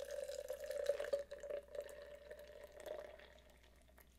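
Iced shaken espresso poured from a plastic blender bottle into a tall glass: a thin, steady trickling stream that tapers off and stops about three seconds in.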